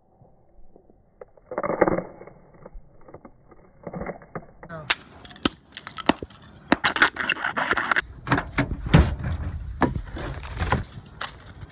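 A man's voice briefly, then a hammer striking pieces of a wooden ruler on asphalt in a quick run of sharp knocks and cracks. Near the end, wind rumbles on the microphone with clattering handling.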